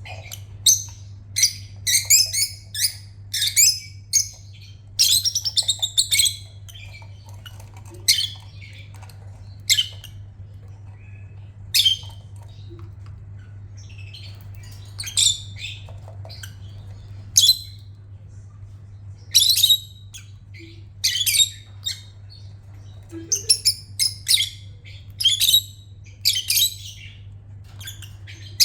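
Pet lovebird chirping and squawking in short, sharp high-pitched calls, in quick runs during the first few seconds, sparser through the middle, and bunched again in the last ten seconds. A steady low hum sits underneath.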